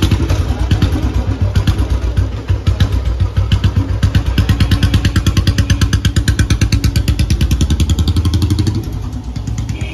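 Restored Royal Enfield Bullet's single-cylinder engine, just fired up, running with an even, rapid beat of exhaust pulses. Near the end it pulls away and the sound drops somewhat.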